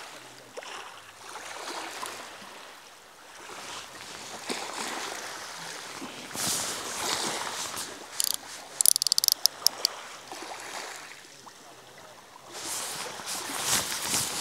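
Small waves washing up and drawing back over a shingle beach, swelling and easing in surges. About nine seconds in there is a quick run of sharp clicks.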